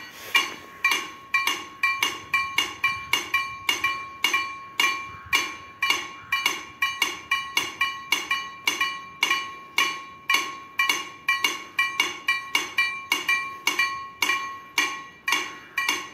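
Level-crossing warning bells from two KLD-40 sound generators ringing continuously, a bell-like strike about two to three times a second, each strike ringing on briefly.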